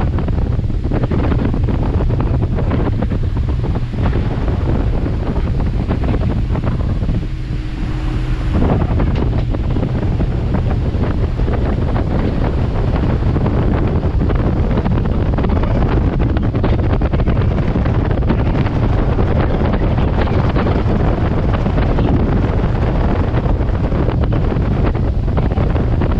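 A river water taxi's outboard engine running at cruising speed, heard from inside the boat's cabin, mixed with wind buffeting the microphone and water rushing past the hull. The noise eases briefly about seven seconds in, then picks up again.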